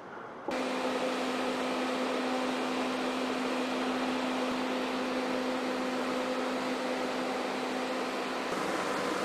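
Refuelling truck running during hose refuelling of the aircraft, a steady mechanical hum with a low tone. It starts abruptly about half a second in, and its tones change near the end.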